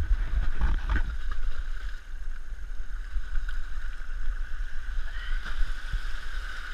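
Muffled rumble of wind and rubbing on a camera worn under a neoprene hood, with a couple of knocks about a second in. Small waves are washing over the rock ledge.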